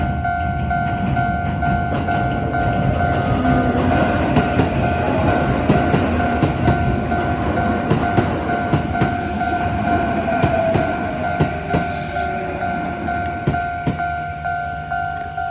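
Level-crossing warning bell ringing in an even, repeating electronic ding while a Sanyo Electric Railway local train passes, its wheels clacking rhythmically over the rail joints. The train noise builds to a peak about halfway through and eases off near the end while the bell keeps ringing.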